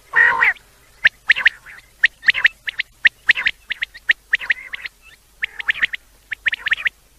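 Quail calling: a short harsh call right at the start, then from about a second in, quick sharp high notes in clusters of two or three, repeated with short pauses.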